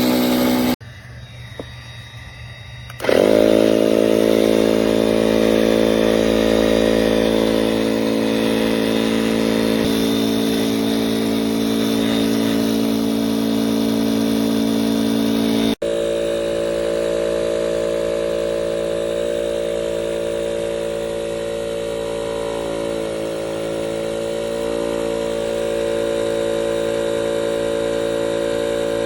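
A 12V DREAMPUMP 16 PSI electric paddle board pump motor running with a steady hum. It drops away just under a second in and spins back up about three seconds in. Its sound changes abruptly about halfway through.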